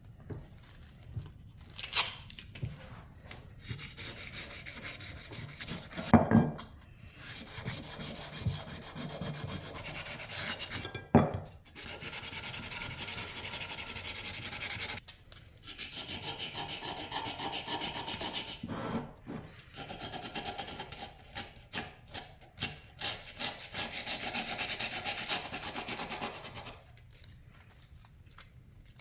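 Hand plane parts being worked back and forth by hand against an abrasive, in long stretches of quick rasping strokes. A few sharp knocks come between the stretches, the loudest about six and eleven seconds in.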